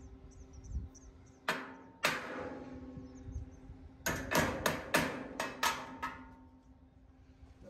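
Hammer blows on the steel pipe of a smoker's collector, knocking it down into place against a fresh tack weld: two strikes about half a second apart, then a quick run of about nine. Each blow rings briefly.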